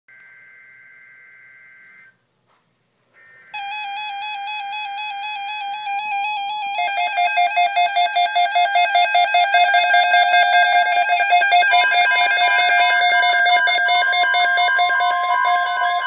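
NOAA weather radio receivers going off for an EAS tornado watch alert. It opens with faint two-tone SAME data-burst screeches. About three and a half seconds in, the radios' loud electronic alert tones start warbling, and from about seven seconds in several overlap into a fast pulsing alarm.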